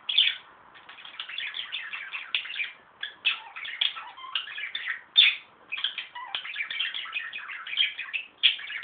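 Pet birds chattering, a dense, nearly unbroken run of quick short chirps and twitters, close by.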